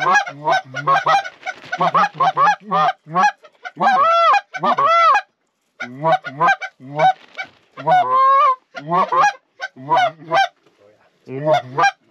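Canada goose calls blown hard and fast by hunters: rapid clucks and honks, with a couple of longer drawn-out honks about four seconds in and a short break near six seconds. They are calling to a flock of Canada geese working toward the decoys.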